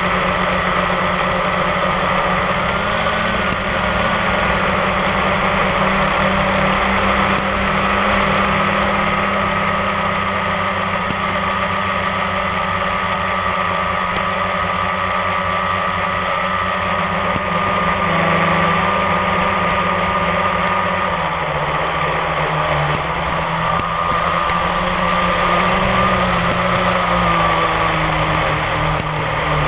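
Multirotor drone's motors and propellers running steadily in flight: a constant whine whose pitch wavers slightly now and then as it holds position.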